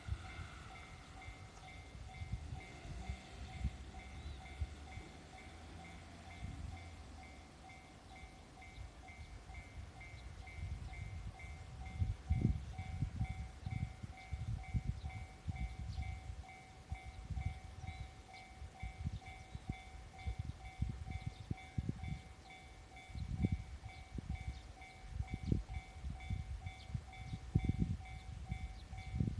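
Japanese level-crossing warning bell ringing on and on in an even, repeating rhythm, the signal that a train is approaching. Irregular low rumbles and thumps come and go under it, loudest about twelve seconds in and near the end.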